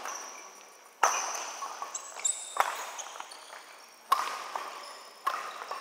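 Badminton rackets striking the shuttlecock in a doubles rally: four sharp hits about a second and a half apart, each echoing in a large hall, with high shoe squeaks on the court floor between them.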